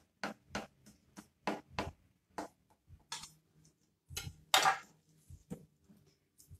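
Kitchen knife cutting through raw seitán (wheat gluten) dough in a stainless steel bowl: a run of short scraping strokes against the dough and bowl, about three a second at first and then slower, with one louder, longer scrape about four and a half seconds in.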